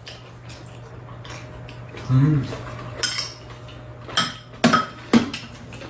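Metal spoons clinking and scraping against bowls while people eat, in scattered separate clinks, several close together near the end. About two seconds in there is a brief pitched hum of a voice, like an appreciative "mm".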